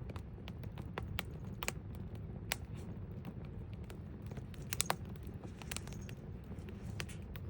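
Campfire burning: irregular sharp crackles and pops over a steady low rumble of the flames.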